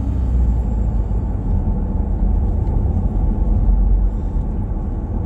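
Steady low rumble of a vehicle driving on a snowy road, heard from inside the cabin: engine and tyre noise.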